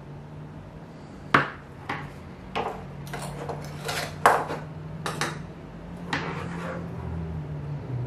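Small hand tools and a coaxial cable clicking and knocking on a wooden tabletop as they are handled and picked up, about ten sharp taps spread over several seconds, the first the loudest. A low steady hum runs underneath.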